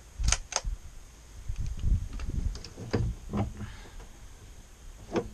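Rifle being handled and settled into firing position on a pickup's truck bed: two sharp clicks in quick succession, then low bumps and knocks with a few lighter clicks, and one more click near the end. No shot is fired.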